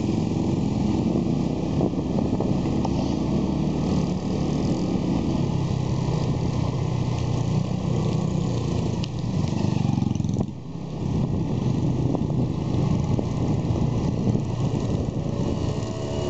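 Motorcycle engine running steadily while riding along a road, heard from on the bike, with a brief drop in sound about ten seconds in.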